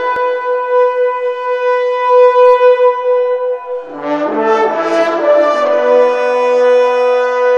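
Background music led by a wind instrument holding one long note, with lower notes joining about four seconds in.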